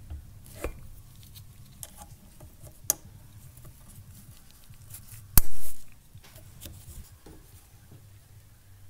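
Small plastic and metal clicks of fuel injectors being worked into an LS fuel rail and their retaining clips fitted, over a faint low hum. A sharp click about three seconds in and a louder snap with a brief rattle about five and a half seconds in.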